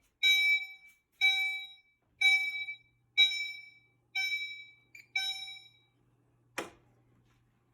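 Gentex Commander notification appliance on a fire alarm panel's CO system sounding its chime tone, one decaying ding about every second, signalling a carbon monoxide alarm. The chiming stops about five and a half seconds in, and a single click follows about a second later.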